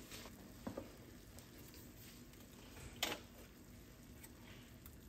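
Quiet kitchen handling sounds as sauce ingredients are poured into a pan: a couple of faint clicks near the start and a sharper click about three seconds in.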